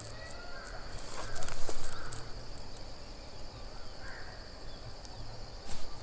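Forest ambience: a steady high-pitched insect drone, with scattered bird calls, a little louder for a moment about one and a half seconds in.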